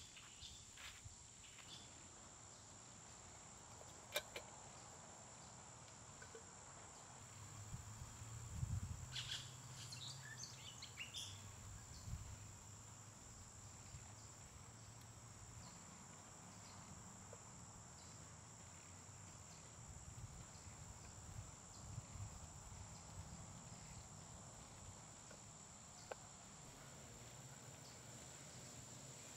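Faint outdoor ambience dominated by a steady high-pitched insect drone. There are a few light clicks and taps, a small cluster about ten seconds in.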